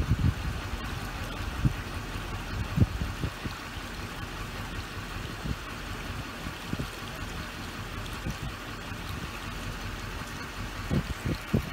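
Steady rushing noise of floodwater running across a flooded street, with a few short low thumps about two and three seconds in and near the end.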